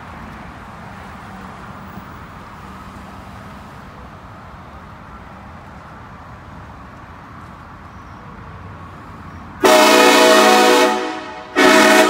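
Air train horn mounted on a lifted Ford Super Duty pickup blown twice: a loud blast of about a second and a half, then a short second blast after a brief gap, several tones sounding together. Before the horn there is only low steady background noise.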